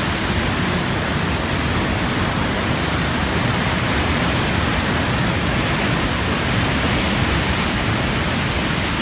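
Steady roar of giant ocean waves breaking and surf churning, an even wash of noise with no single crash standing out.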